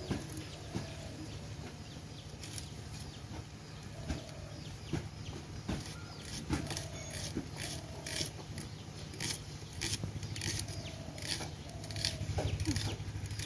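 Tomatoes being sliced on a bonti, a curved floor-mounted kitchen blade: soft, irregular cutting clicks. Faint short calls sound now and then behind them.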